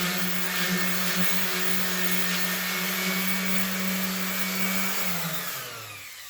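Electric sander running steadily while sanding the jointer table, then switched off about five seconds in, its motor winding down with a falling pitch.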